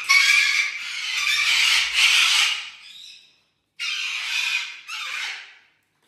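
Parrot screeching in harsh, loud squawks: one long stretch, then after a short break two shorter ones.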